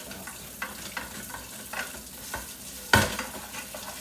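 Dish brush scrubbing a pan in a stainless steel sink under a running tap: a series of short scraping strokes, with one sharp knock about three seconds in.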